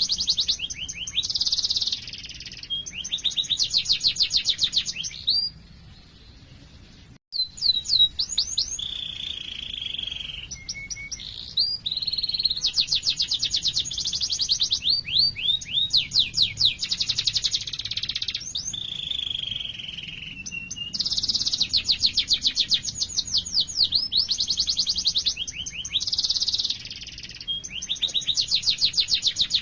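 Domestic canary singing a long rolling song of rapid, high trills and fast repeated chirps, with some sweeping notes. There is a brief break about six seconds in.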